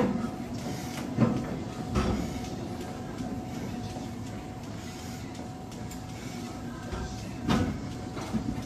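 Gym room noise: a steady hum with background murmur, broken by a few short thuds and knocks at the start, about a second in, at two seconds and again near the end.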